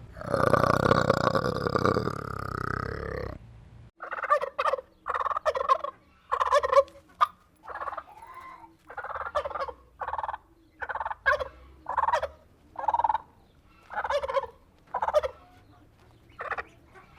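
A loud, rough, dense sound for about the first three seconds, which stops suddenly. After a brief gap comes a long series of short fowl calls, about one or two a second.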